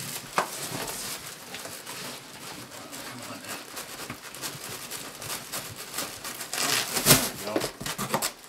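Cardboard boxes rubbing and scraping against each other as an inner box is worked and tipped out of a large shipping carton, with small knocks throughout and a louder scrape about seven seconds in.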